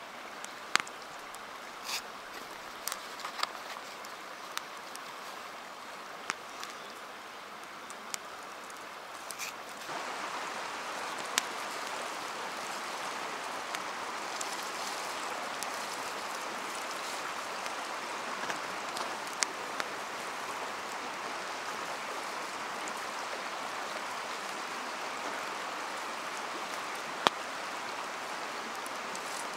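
Scattered sharp clicks and snaps over a faint hiss, then, about a third of the way in, a louder steady watery hiss begins and holds.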